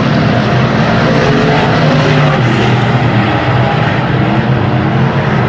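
Stock car engine running loud and steady, its pitch wavering slightly.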